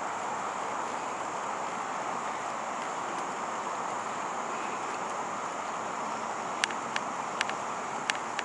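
Steady road noise of a moving car, with a few sharp clicks near the end.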